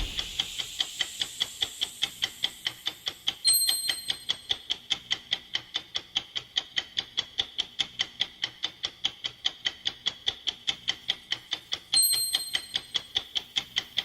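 Clock-ticking sound effect of a countdown timer: rapid, evenly spaced ticks, with a short bell-like ding about three and a half seconds in and again near the end.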